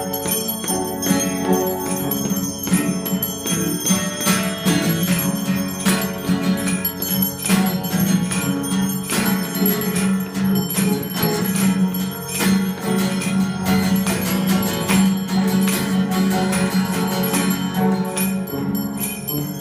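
Russian church bells rung in a peal: rapid, dense strikes on the smaller bells over the steady ringing of a lower bell, with no pause.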